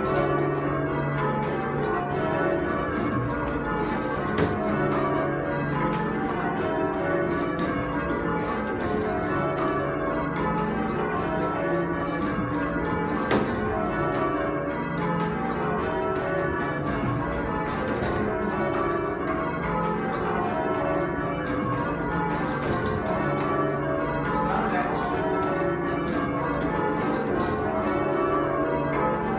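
Change ringing on a ring of eight church bells with a 25 cwt tenor in C#: the bells strike one after another in a steady, unbroken sequence, their tones ringing on over each other.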